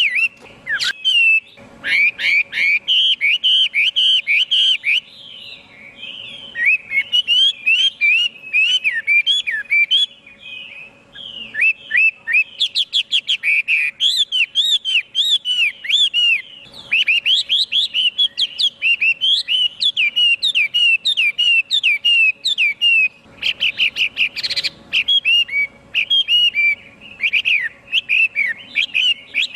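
Chinese hwamei singing: a long, fast run of loud, varied whistled notes that slide up and down, broken by a couple of brief pauses.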